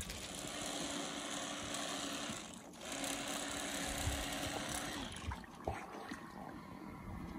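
Boat motor running with a steady hum under a wash of noise. The hum breaks off briefly, then stops about five seconds in.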